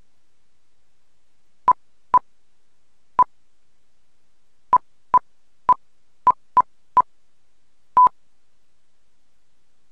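Ten short beeps, all of one pitch and spaced irregularly, the last a little longer: key-entry beeps as a frequency is keyed in digit by digit on the remote-controlled Icom radio, the longer final beep closing the entry.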